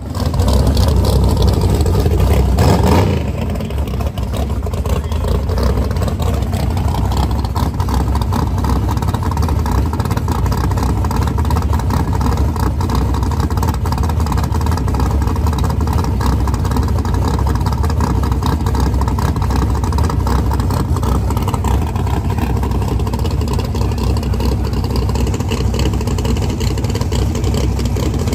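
Engines of Limited Drag Radial race cars running loud: a short rising rev in the first three seconds, then a steady heavy rumble as the cars idle and roll toward the water box and starting line.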